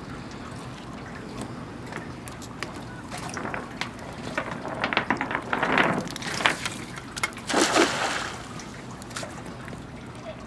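Water dripping and trickling off a wet cast net as it is gathered and swung, then a splash as the net lands on the lake about three quarters of the way through.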